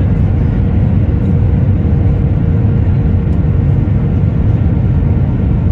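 Steady cabin noise of a jet airliner on approach to landing, heard from a window seat over the wing: a loud, even low rumble of the engines and airflow, with a faint steady hum above it.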